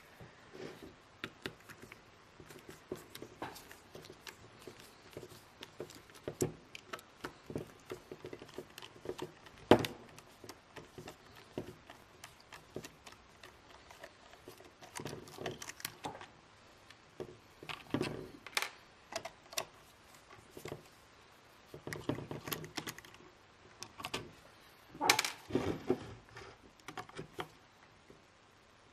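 Small Torx screwdriver working the screws out of the bottom of a plastic Milwaukee M18 battery pack: irregular clicks and scrapes of the bit and the case being handled, with a few louder knocks of the pack on the bench.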